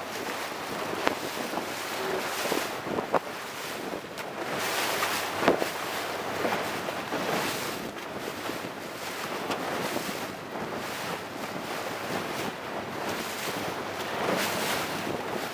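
Wind buffeting the microphone over the rush of water and spray as a two-person sailing dinghy planes through choppy waves, with a few sharp slaps and splashes as the hull hits the chop.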